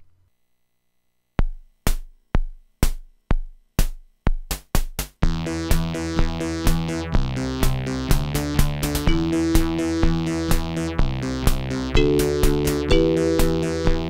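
Commodore 64 SFX Sound Expander's FM synthesis playing: after a moment of silence its drum machine gives a count-in of drum hits about two a second, quickening near the end, then about five seconds in FM chords and bass join the 'Pop 1' drum rhythm as a tune is played live on its external keyboard.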